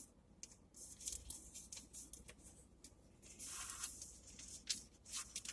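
Faint handling of paper items: scattered light taps and ticks, with one brief rustle of paper about three and a half seconds in.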